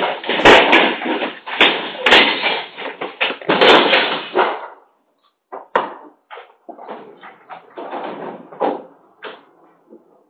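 Loud clattering, thuds and bangs of people scrambling over a shop counter, picked up by a CCTV camera's microphone. About five seconds in it thins out to scattered separate knocks and bumps.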